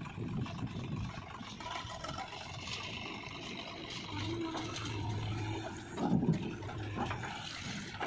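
JCB backhoe loader's diesel engine running as the machine digs soil. A steady low hum sets in about four seconds in, and a dull thump comes about six seconds in.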